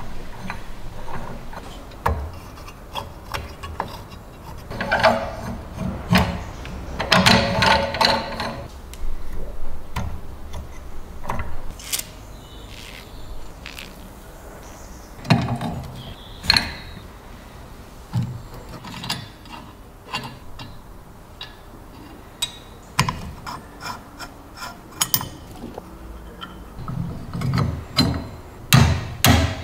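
Rusty cast-iron hand-cranked grain mill being worked by hand: its rusted gears and burrs grate and click as the crank is turned, densest about five to eight seconds in. Then come scattered metal clicks and knocks, a brief aerosol spray of lubricant, and metal parts scraping and clinking as the grinding plate is worked loose near the end.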